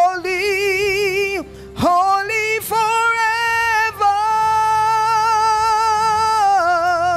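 A woman singing a worship song into a microphone, holding long notes with wide vibrato: one note ends about a second and a half in, a short phrase follows, then one long note is held from about four seconds in.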